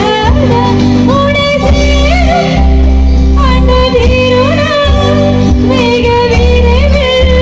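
A woman singing a Tamil film song live into a microphone, her melody bending and ornamented, over a band accompaniment with held bass notes that change about once a second.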